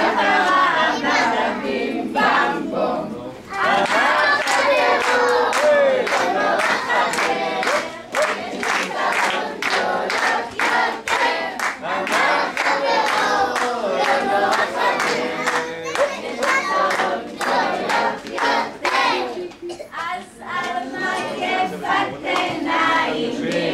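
A group of young children singing a song together, with rhythmic hand claps through much of it.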